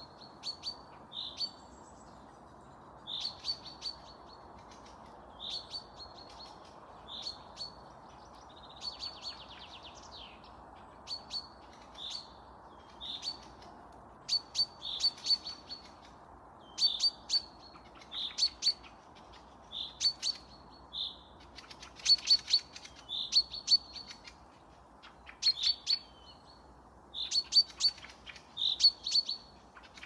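Forest songbirds singing in spring: short high notes repeated every second or so, mixed with sharp clicky notes and a brief trill, more often and louder in the second half, over a steady faint hiss.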